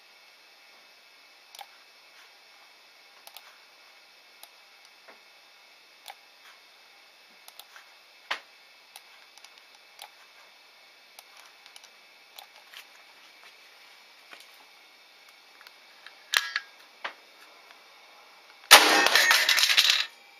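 A big-bore .50-calibre PCP air rifle firing a 455-grain slug: one very loud burst, about a second and a half long, near the end. Faint scattered clicks come before it.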